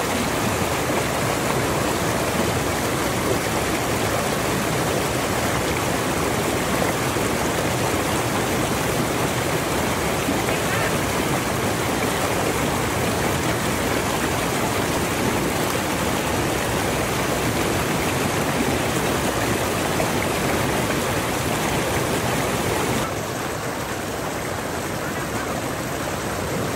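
A rocky creek rushing and splashing over boulders in a steady, even wash of water noise. It becomes a little quieter for the last few seconds.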